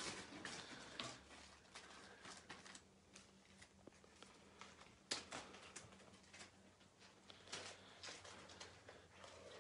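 Near silence, with a few faint scattered clicks and rustles, one sharper click about five seconds in.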